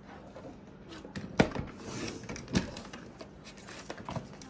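Creative Memories paper trimmer cutting a sheet of vellum: three sharp clicks from the cutting head, the loudest about a second and a half in, with a scraping rustle of blade and paper between the first two.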